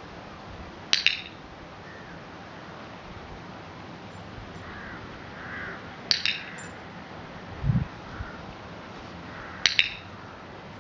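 Three short, sharp clicks, about a second in, around six seconds in and near the end, the last one a quick double click. A short low thump comes a little before the last click.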